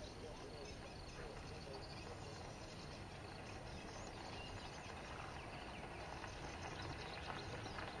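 Faint outdoor wetland ambience: a steady low hiss with scattered faint high chirps.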